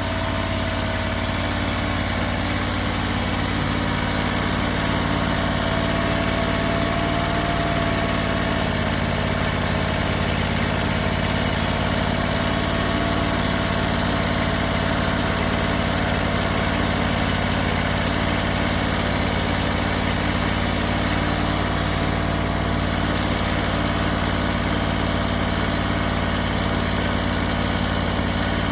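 Engine of a hydraulic sawmill running steadily, with a steady whine over it that shifts slightly in pitch about eight seconds in.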